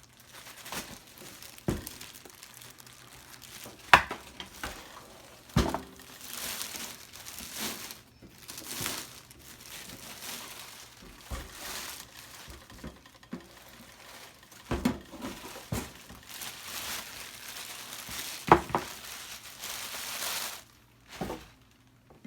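Plastic packaging crinkling and rustling as an appliance is unwrapped, with tape being pulled off. Several sharp knocks of the oven or its parts being handled, the loudest about 4 seconds and 18 seconds in.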